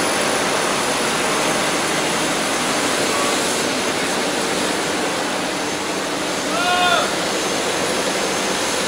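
Steady, loud running of heavy site machinery: diesel generator sets and the drilling rig used to push gas pipe underground without digging. A brief high call rises over it about seven seconds in.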